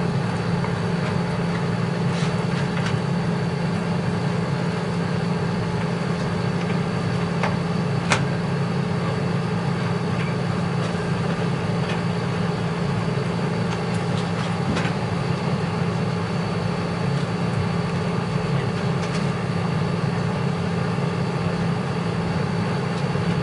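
Steady low hum throughout, with a few faint clicks and knocks from computer parts and screws being handled during reassembly; the sharpest click comes about eight seconds in.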